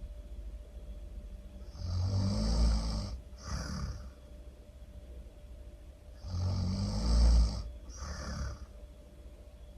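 Really loud snoring in slow cycles: twice, a long low rasping snore followed by a shorter breathy one, about four and a half seconds apart.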